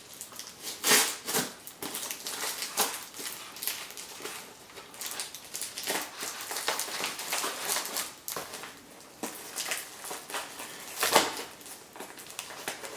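A Mora knife cutting open a posted package, with irregular scraping, slicing and crackling of the packaging being cut and pulled apart.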